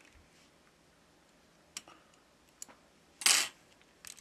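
Small sharp clicks and ticks of metal tweezers and small parts against an opened Samsung Galaxy S20 Ultra's frame, with one much louder short clatter a little past three seconds in.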